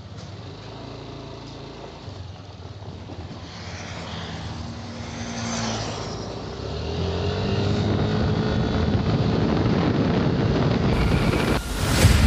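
Motorcycle engine running and pulling away, growing louder over several seconds as it picks up speed, with a sudden louder surge near the end.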